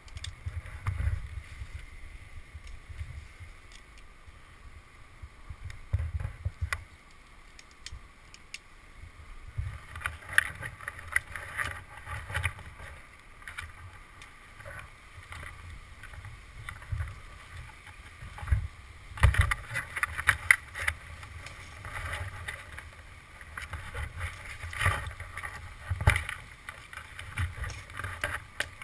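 Climbing rope and gear being handled close to the microphone: irregular rustling, light clicks and dull knocks, with a few louder bursts about two-thirds of the way through. Wind buffets the microphone underneath.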